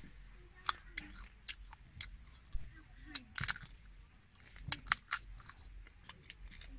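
Someone eating crisp cooked insects: sharp, irregular crunching clicks of biting and chewing. About four and a half seconds in, short high chirps repeat several times, like a cricket or bird.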